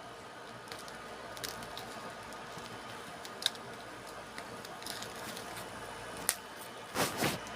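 Hands unpacking hearing-protection earmuffs: scattered small clicks and rustles of handling, with a sharper tick about halfway and a louder burst of crinkling near the end.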